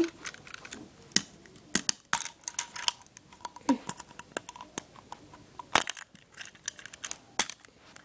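Lego bricks clicking and knocking as a brick-built padlock is handled and its casing pulled apart to expose the mechanism: a string of irregular clicks.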